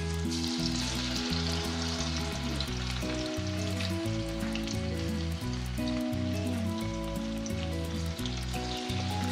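Sweetcorn pakoda batter deep-frying in hot oil, a steady sizzle, with background music playing over it.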